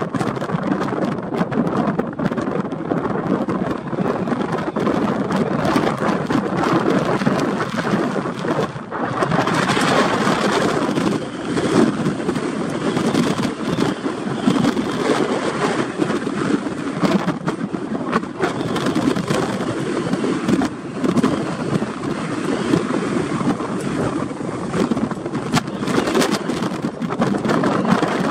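Strong gusting wind over the bridge and the microphone, a continuous dense rushing that flickers in level, with the bridge's railings whistling in the gale.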